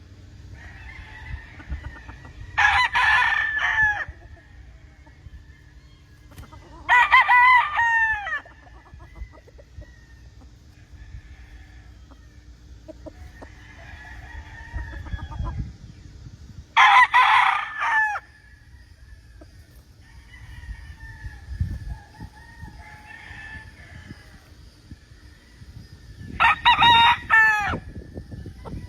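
Roosters crowing: four loud crows, each about a second and a half long and spaced several seconds apart, with fainter calls from other birds in between.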